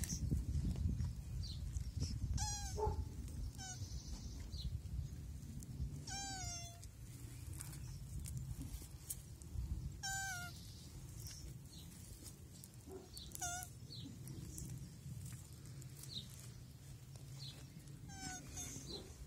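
Mating male tortoise giving short, high-pitched squeaking cries, repeated every few seconds, each with a wavering pitch that dips at the end.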